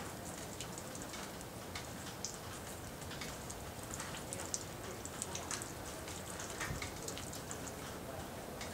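Rain falling, heard as a steady hiss with many small, irregular ticks of drops hitting nearby surfaces.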